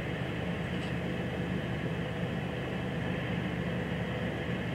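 Steady night-time city background: an even hum and hiss with no distinct events, like air-conditioning units or distant traffic.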